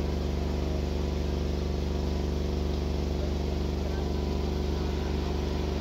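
Steady engine hum at a constant pitch with no revving or change.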